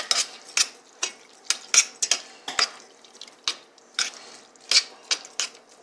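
A spoon stirring canned corn in a stainless steel saucepan, clinking and scraping against the pot's sides and bottom in irregular strokes, about two a second.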